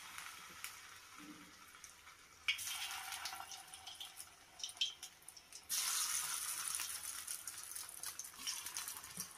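Batter-coated soya chunks deep-frying in hot oil in a steel kadai, sizzling with small crackles. The sizzle surges about two and a half seconds in and again near six seconds in as more pieces are dropped into the oil.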